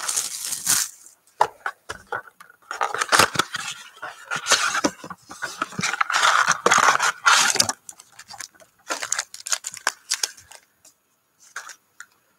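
Hands tearing open a cardboard box of trading-card packs, with a run of ripping and crinkling over the first eight seconds or so, then lighter rustles and clicks as the packs are pulled out and handled.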